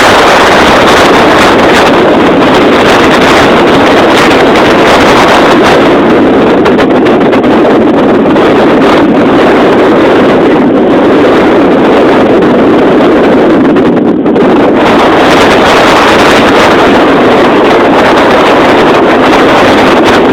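Storm wind blasting across a phone's microphone: a loud, steady rush of wind noise that runs near the top of the recording's range, easing only briefly about two-thirds of the way through.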